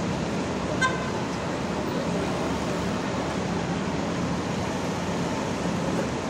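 Steady city street traffic noise with a low, even engine hum. One short, high-pitched beep sounds about a second in.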